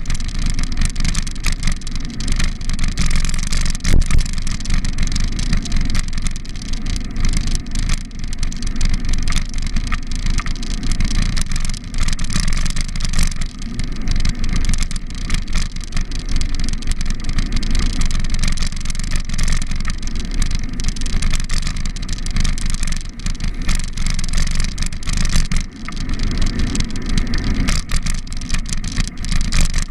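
Wind and riding noise on a camera mounted on a moving bicycle: a loud, steady rumble with rattling jolts from the paved cycle path, and a sharp knock about four seconds in. Car traffic runs on the road alongside.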